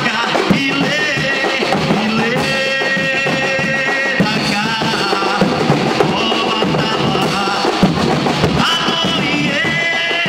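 Afro-Brazilian percussion band playing loudly on large shoulder-slung bass drums (surdos) and other drums, a dense continuous rhythm, with a held melody line sounding over the drumming.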